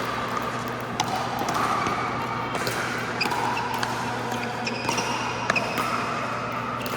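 Pickleball paddles striking the ball on an indoor court: sharp, irregular pops, several in a few seconds, the loudest about a second in and again near five and a half seconds, over a steady background of court noise.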